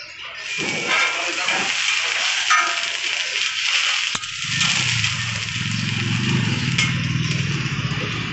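Masala dosas sizzling on a hot flat iron griddle while a metal spatula scrapes under them to lift and roll them, with a sharp click about four seconds in. A low steady hum joins at about the same time.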